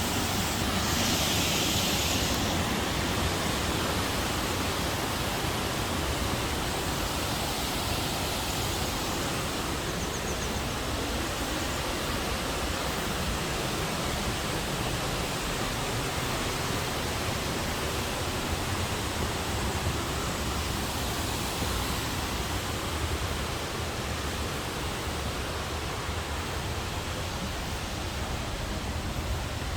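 Waterfall in a narrow rock gorge: a loud, steady rush of falling water.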